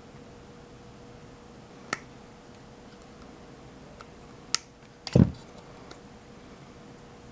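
Small flush cutters trimming component leads on a circuit board: a light click about two seconds in and a sharp snip past the halfway point, followed at once by a dull knock on the bench, the loudest sound, over a faint steady hum.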